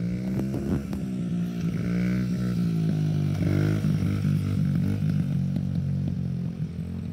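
Small Honda dirt bike's single-cylinder four-stroke engine running as it is ridden, its pitch rising and falling with the throttle. It grows louder in the middle as the bike passes close by, then eases off as it rides away.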